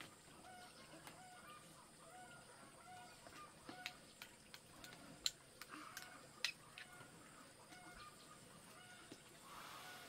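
A metal spoon clinking a few times against a ceramic porridge bowl, the sharpest clinks in the middle. Under it, a bird's short call repeats steadily about twice a second.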